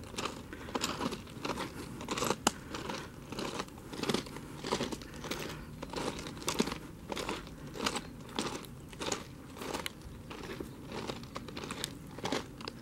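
Footsteps crunching on gravel track ballast at an even walking pace, about two steps a second.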